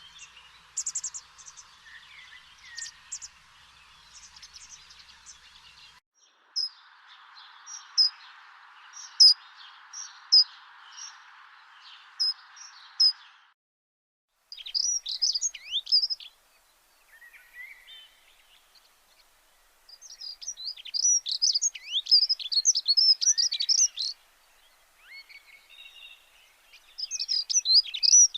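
Small birds chirping and trilling in quick, high notes, in several stretches that start and stop abruptly, over a faint steady hiss in the first half.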